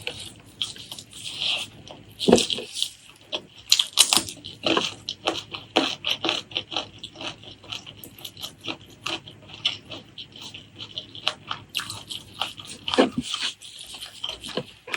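Close-miked eating sounds: chewing and wet lip-smacking on pork leg curry and rice, a steady stream of irregular clicks and smacks with a few louder ones.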